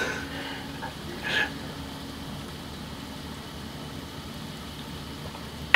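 Steady low hum and hiss of a kerosene fan heater running, with a short faint sound about a second and a half in and a sharp click near the end.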